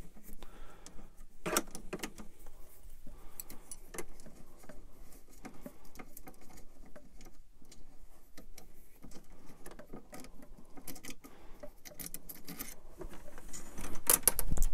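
Small metal parts clicking and rattling as a hex key works loose the bolts and V-slot wheels of a 3D printer's carriage plate: scattered light clicks throughout, with a louder clatter near the end.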